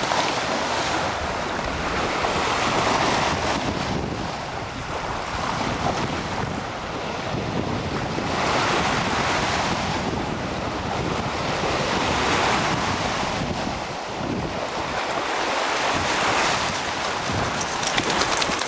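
Lake Michigan waves washing onto the shore, swelling every four seconds or so, with wind buffeting the microphone.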